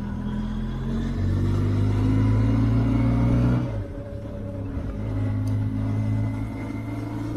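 Benelli TRK 502X's parallel-twin engine pulling under acceleration, rising in pitch. Just over halfway through the revs and level drop for about a second, then it pulls and rises again.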